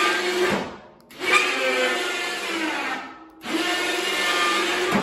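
Electric winch on a homemade clamshell loader bucket for a garden tractor, running in three runs of about two seconds with brief stops between, a motor-and-gear whine as the winch pulls the bucket open and shut.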